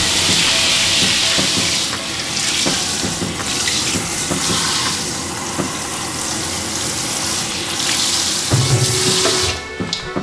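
Newly installed shower running, water spraying steadily onto the shower tray; the flow shuts off near the end.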